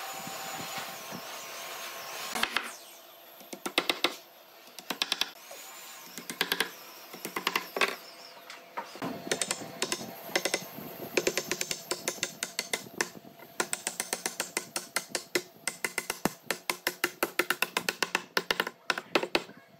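A hammer driving wooden dowels into holes along the edge of a thick hardwood board: quick runs of sharp knocks, spaced out at first, then almost continuous through the second half.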